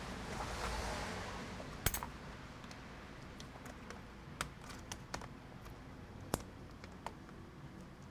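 Keys on a Lenovo ThinkPad E15 Gen 2 laptop keyboard being pressed with scattered, irregular clicks, a test of whether the dead keys work after cleaning. A soft rustle of handling in the first second and a half.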